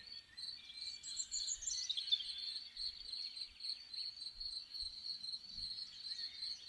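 Crickets chirping steadily in a rapid, even high-pitched pulse, with a bird singing a quick descending run of notes about a second in.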